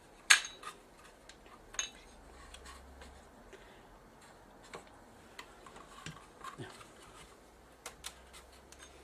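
Scattered light clicks and taps of small parts being handled as replacement electrolytic capacitors are fitted into a TV power-supply circuit board, with the sharpest click just after the start.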